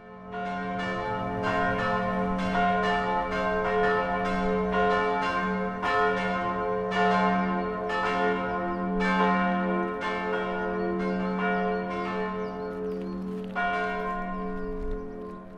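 Church bells ringing, several bells struck one after another about once a second with their long hum overlapping; the last stroke comes about two seconds before the end and the ringing fades away.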